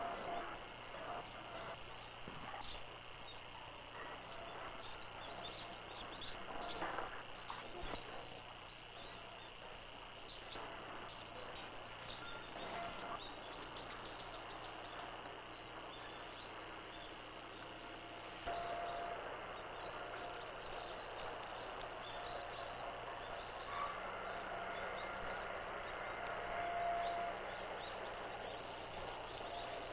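Faint outdoor ambience: scattered short bird chirps over a steady high-pitched hum and background hiss, with a few brief held whistle notes in the last third.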